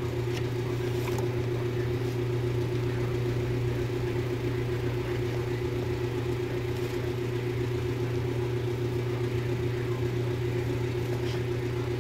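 Steady low mechanical hum that holds level throughout, with a few faint clicks on top.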